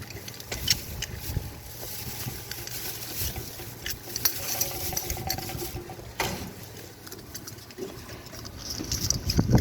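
Light clicks and scraping as a brass compression elbow and its ring are handled against the cut end of a copper pipe, over a steady low hum.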